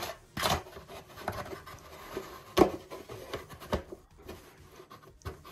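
Clear plastic canopy tapping and rubbing against a balsa fuselage as it is set in place: scattered light clicks and knocks with a rustle, the sharpest about two and a half seconds in.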